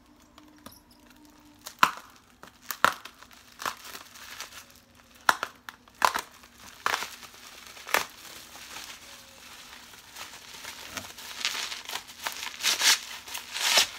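Plastic bubble wrap being cut and unwrapped from a glass jar: a series of sharp snips or clicks about a second apart, then a stretch of denser crinkling and rustling near the end.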